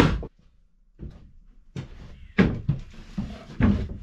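A last hammer blow on a nail into a plywood box right at the start, then, after a short pause, wooden knocks and bumps as the plywood box is handled and lifted off the bench, the loudest near the end.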